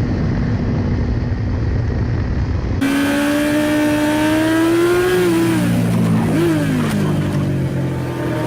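Road vehicle engines: a steady engine hum with road noise, then, after an abrupt change about three seconds in, engines revving, their pitch rising and then dropping away.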